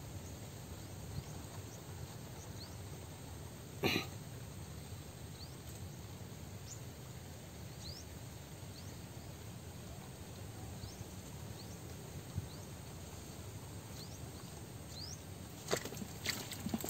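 Quiet outdoor rural ambience: a steady low background with faint, short, rising high chirps scattered every second or so. A brief louder rasp comes about four seconds in, and a few sharp clicks come near the end.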